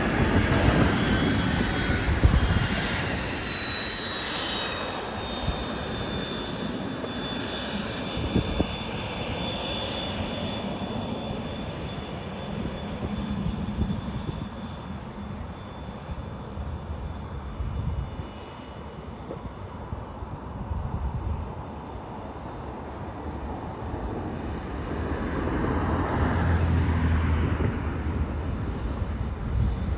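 Nextant 400XT business jet's twin Williams FJ44 turbofans: a high whine falls in pitch over the first few seconds and then holds steady, and the engine noise swells again near the end. Two low thumps come within the first nine seconds.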